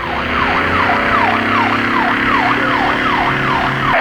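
Police car siren in a fast yelp, its pitch sweeping up and down about two and a half times a second over a steady low hum.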